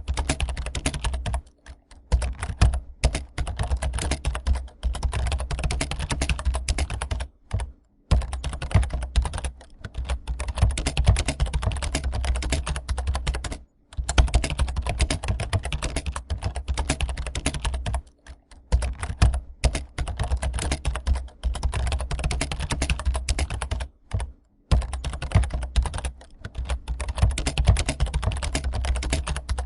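Fast, continuous typing on a computer keyboard, a dense run of key clicks with a few short pauses between bursts.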